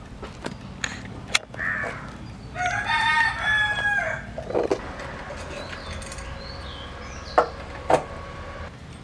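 A rooster crows once, a call of about a second and a half near the middle, with shorter bird calls before it. Two sharp knocks sound close together near the end.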